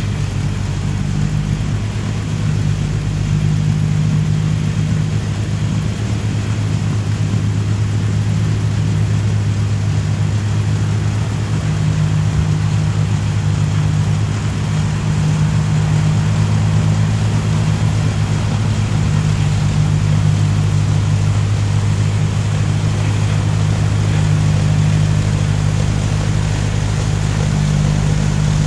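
1955 Ferguson TO35 tractor's engine running under load as it powers a snowblower through wet snow: a steady, low drone.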